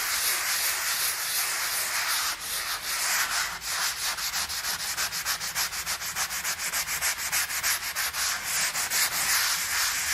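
Coarse sanding sponge rubbing back and forth over dry joint compound on a drywall repair, a steady scratchy sanding in quick strokes that get faster about halfway in. The compound is being sanded smooth and its edges feathered before the next coat.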